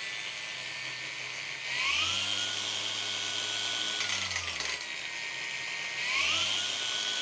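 A cheap cordless angle grinder running with no load, its motor whine stepping up to a higher speed about two seconds in, dropping back after about four seconds, and rising again near six seconds as it is switched between its low and high power modes.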